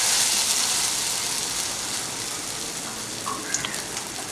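Batter-coated eggplant slice sizzling in hot oil in a kadai, just laid in. The sizzle is loudest at first and eases off gradually.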